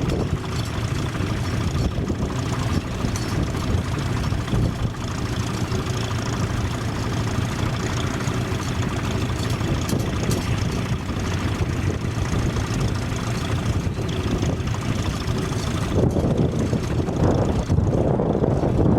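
Vintage tractor engine running steadily. About three seconds before the end the sound turns fuller and lower as the highest sounds fall away.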